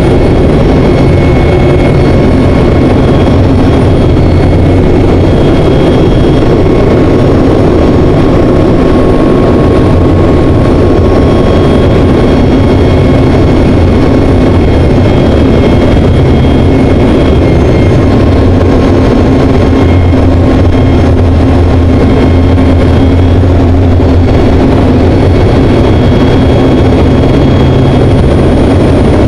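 KT-1B Woongbi trainer's single turboprop engine and propeller heard from inside the cockpit in flight: a loud, steady drone, with faint high whistling tones that come and go.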